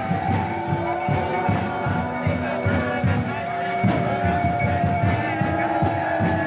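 Devotional kirtan: a group chanting, with a quick drum beat and jingling hand cymbals.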